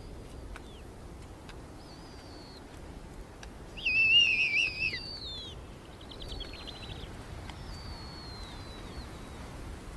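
Snowy owl owlets begging at the nest: thin, high, falling peeps every second or two, with a louder cluster of wavering squeals about four seconds in and a brief quick rattle about two and a half seconds later.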